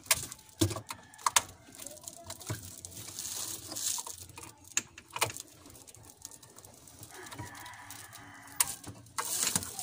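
Plastic electrical plug and socket being handled and pushed together, with sharp clicks at irregular intervals and cables rattling; a longer rustle of handling comes near the end.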